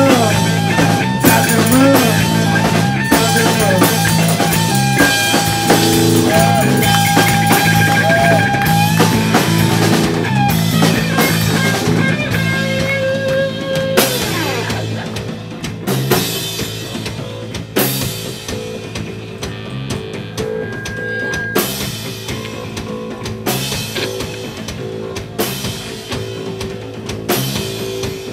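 A live rock band playing an instrumental passage: electric guitar and bass over a drum kit, with long held notes that bend in pitch in the first half. The playing thins out and drops in level after about halfway.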